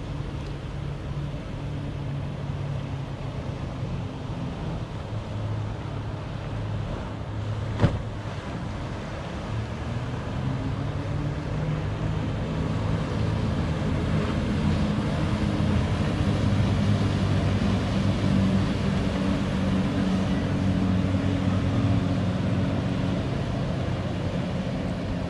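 Motorboat engines running out on the water, a low hum that grows louder and slowly shifts in pitch as the boats pass, over a wash of wind and water. A single sharp click about eight seconds in.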